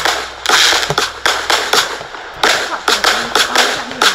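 Vulcan Neon firework firing: a rapid run of shots bursting in the air with crackle, about two or three bangs a second.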